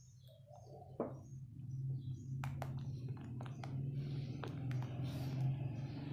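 Metal spoon stirring and scraping thick, simmering tomato ketchup in a steel pan, with scattered sharp clicks of the spoon against the pan and a steady low hum underneath that starts about a second in. The ketchup is being cooked down until it thickens.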